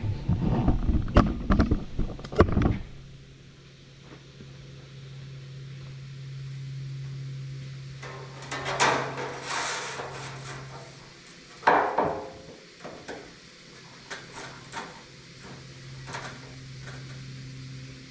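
Workshop handling noise: a quick run of knocks and clatter, then a steady low hum with two short bursts of scraping and clatter and a few light taps.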